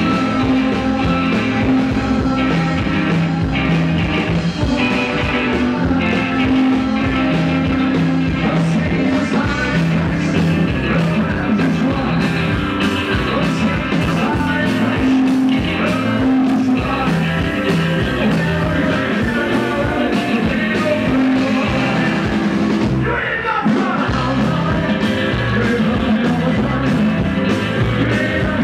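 Live rockabilly band playing rock and roll: a walking line on upright double bass, electric guitar and drums, with a male singer, and a brief break about four-fifths of the way through.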